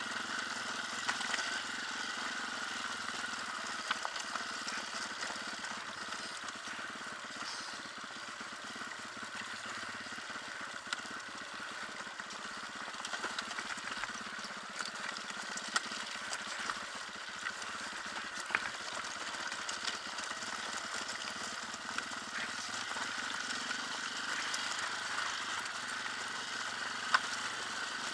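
Off-road dirt bike engine running steadily as the bike rides down a rocky trail, with occasional short knocks over the stones.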